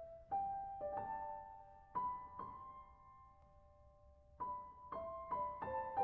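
Background music: a slow, soft piano melody of single notes that ring and fade, with a pause of about two seconds midway.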